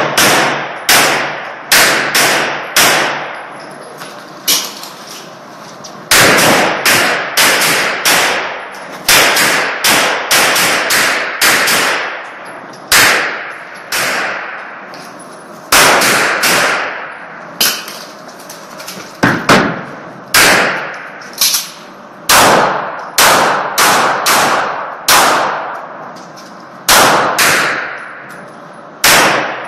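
Pistol fired in quick strings of shots, dozens in all, with short pauses between strings as the shooter moves between positions. Each shot rings on in a short echo off the enclosed range's walls.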